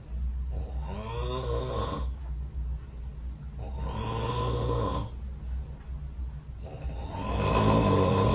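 A person snoring: three long snores about three seconds apart, the last one the loudest, over a steady low hum.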